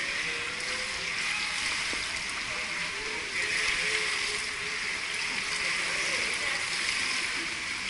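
Steady rush and light splashing of water in an indoor swimming pool, echoing in the hall, with faint distant voices underneath.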